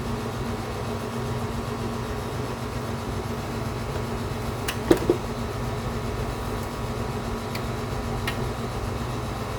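Steady machine hum, like a small fan running, with two sharp clicks close together about five seconds in and a couple of faint ticks later.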